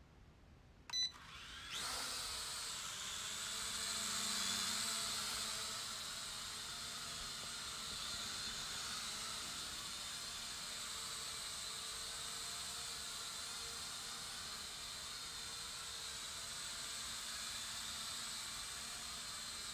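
Small toy quadcopter's four motors and propellers whirring in a steady high-pitched hum as it takes off and hovers, a test flight after one motor was replaced. A short beep comes about a second in, just before the motors spin up, and the whir swells for a few seconds before settling.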